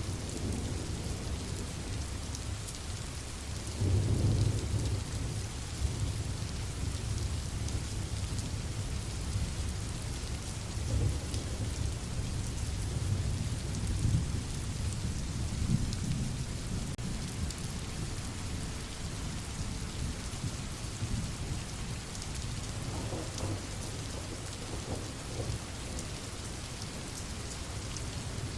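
Steady rain falling, with low rolling thunder that swells about four seconds in and again several times around the middle.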